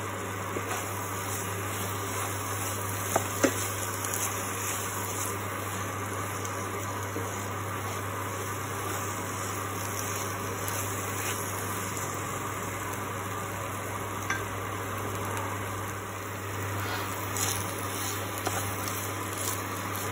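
Thick potato-coconut curry sizzling gently in a kadai as a spatula stirs and scrapes through it, with two sharp knocks of the spatula on the pan about three seconds in. A steady low hum runs underneath.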